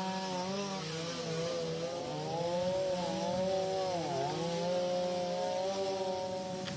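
Chainsaw cutting through a fallen mahogany tree trunk, its engine pitch wavering up and down and dipping briefly about four seconds in as it bogs under load.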